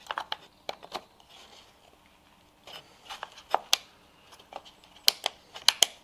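Sharp plastic clicks and light handling noise from a 12 V rocker switch and its wiring being worked in a switch panel. There is a cluster of clicks in the first second, two more about halfway, and a quick run of several near the end.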